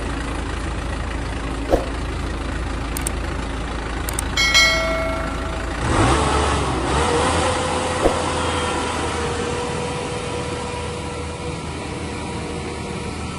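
Inari RG rice combine harvester's engine running steadily. About four and a half seconds in, a short high-pitched tone sounds. About six seconds in, the engine sound changes and a steady whine sets in and holds.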